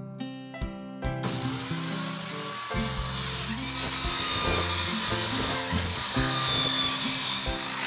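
Rockwell VersaCut power saw starting about a second in and running steadily as it cuts through plywood, with acoustic guitar music playing under it.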